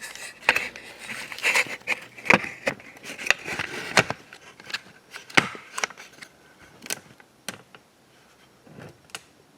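Handling noise: a quick run of clicks, knocks and crinkly rustling for about four seconds, then scattered single knocks that die away near the end.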